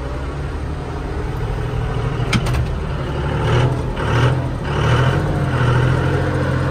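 Tractor diesel engine idling steadily while a hay rake is hooked up to it, with a sharp metallic clank about two and a half seconds in and some rattling a second or two later.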